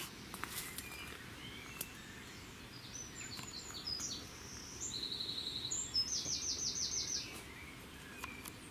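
Small songbirds calling in short high chirps, with two quick trills of rapidly repeated notes in the middle, about five and six seconds in. A steady low background hiss runs underneath.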